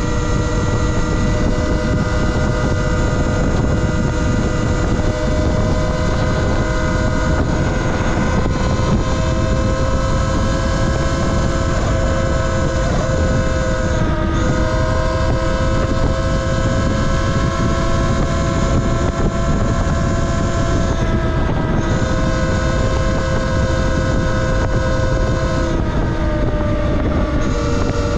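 Talaria Sting R MX4 electric dirt bike riding at speed: its electric motor gives a steady whine of several tones over heavy wind rush on the microphone. The whine sags briefly three times, about halfway, near two-thirds and near the end.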